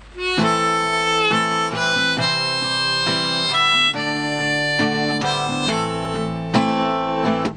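Harmonica played in a neck rack over strummed acoustic guitar, the instrumental opening of a folk song, a melody of held notes. The harmonica stops near the end.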